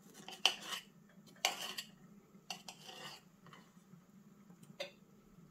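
Light clatters and scrapes of fingers and cut mango pieces against a plate, a handful of separate short knocks spread over several seconds, over a faint steady low hum.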